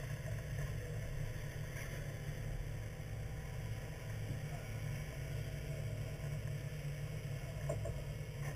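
Fishing boat's engine idling: a steady low rumble.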